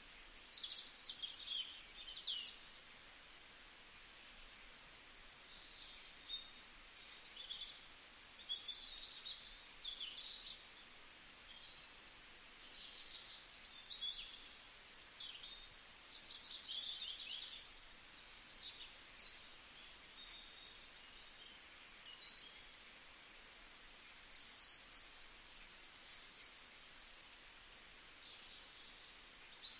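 Small birds chirping and twittering: short high calls and quick trills every second or so, some overlapping, over a faint steady hiss.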